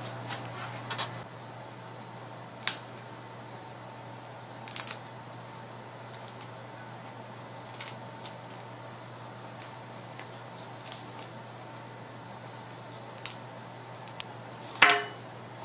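Small irregular clicks and crackles of a plastic pry tool working under an iPad's cracked front glass, lifted with a suction cup, as the glued glass gives way, with a sharper snap near the end.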